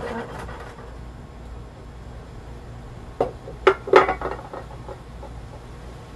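Small metal soil scoop adding potting soil to a terracotta pot: a knock at the start, then a quick run of clinks and scrapes about three to four and a half seconds in, loudest around four seconds.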